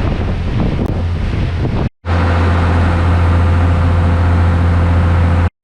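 Wind buffeting the microphone on a boat at sea. After a cut about two seconds in, a boat engine runs with a steady low drone under the wind.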